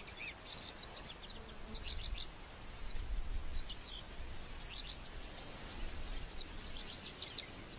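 Small birds chirping in the background: short, high, falling chirp phrases repeated about once a second, over a faint low rumble.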